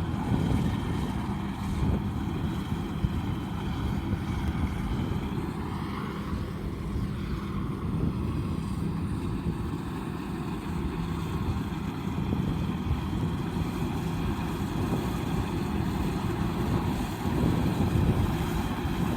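Combine harvester's diesel engine and machinery running steadily, with a brief rising-and-falling whine about six seconds in and a little louder near the end.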